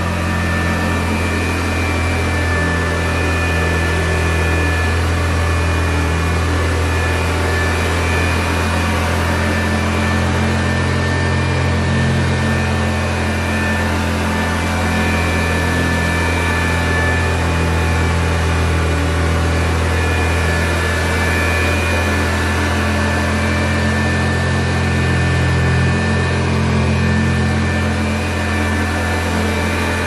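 A 1960 Hoover Convertible Model 31 upright vacuum cleaner running steadily while vacuuming: a deep motor-and-fan hum with a thin, steady high whine above it. The lower hum shifts slightly now and then.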